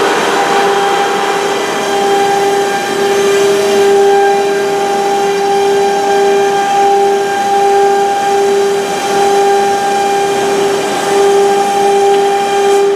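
Woodworking machine running steadily, a loud constant whine over a noisy hiss.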